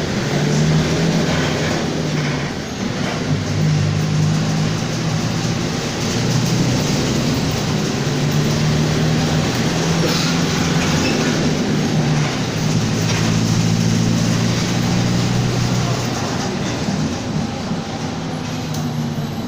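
Mercedes-Benz OF-1722M city bus driving, its engine and drivetrain giving a steady low drone that swells and eases every few seconds.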